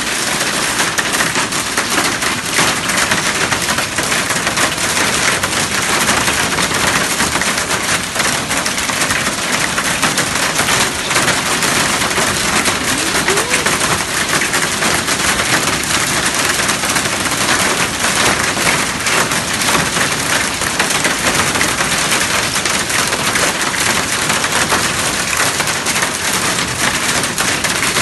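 Hailstones mixed with rain pelting down in a dense, continuous clatter of sharp impacts.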